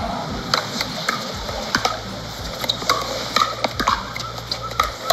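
Pickleball rally at the net: sharp taps of paddles on the hollow plastic ball and the ball bouncing on the hard court, about two or three taps a second in an uneven back-and-forth.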